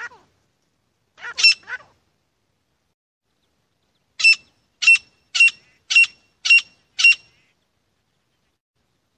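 Grey francolin calling: a few short notes about a second in, then a run of six loud, evenly spaced shrill notes, about two a second.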